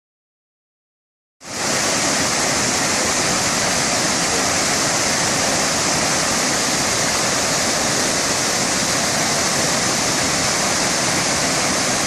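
Steady rushing of Iguazu Falls' cascades, a dense even noise that cuts in abruptly about a second and a half in and holds level.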